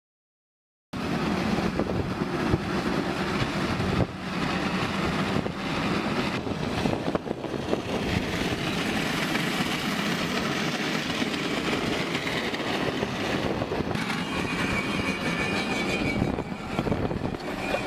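Metal dragging and grinding along the road surface under a moving vehicle, a harsh continuous scrape full of rattling clicks, starting about a second in.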